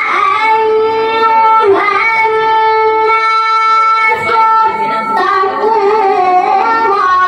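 A boy's voice reciting the Quran in melodic tilawah style into a handheld microphone. He holds long, steady notes, broken by ornamented turns and bends in pitch.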